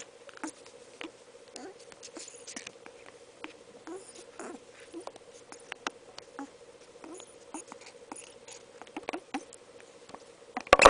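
Congo African grey parrot making soft baby-grey noises: a scattered string of small clicks and squeaks, with a louder burst near the end.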